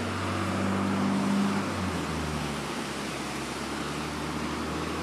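Road traffic noise: a low vehicle engine hum that fades about two seconds in, over a steady hiss.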